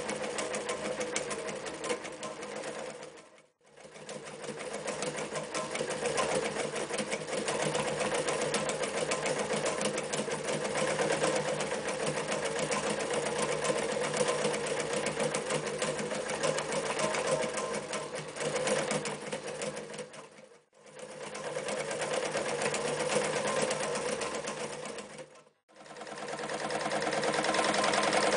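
Reads Z233 electric sewing machine running at speed, stitching through thick layers of leather and then sailcloth. Three times it slows to a stop and starts up again.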